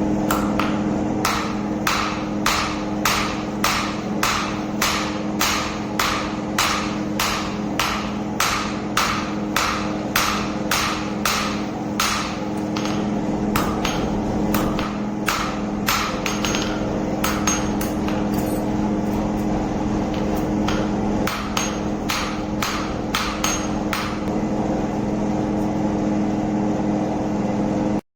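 Hammer striking metal in a steady rhythm, about two blows a second, over a constant machine hum. The blows stop a few seconds before the end while the hum goes on.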